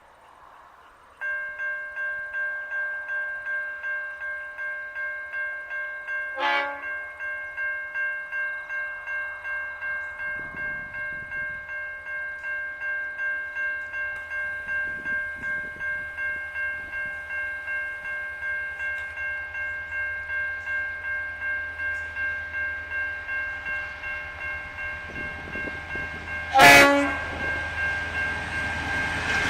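Level-crossing warning bell ringing in a steady, rapid ding, about two strikes a second, starting about a second in. A grain train's locomotive horn sounds two short toots, a faint one about six seconds in and a loud one near the end, as the train's rumble begins to build.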